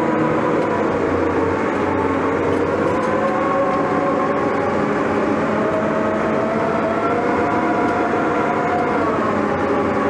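Case 1150M crawler dozer running under load while pushing soil. A steady engine note with a whine that drifts slowly higher through the middle and drops back near the end.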